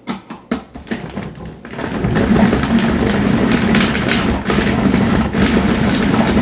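Plastic clicks and knocks as a food processor's lid and pusher are fitted, then about two seconds in the food processor's motor starts and runs steadily with a low hum, its S blade kneading bread dough for a final short spell to develop the gluten.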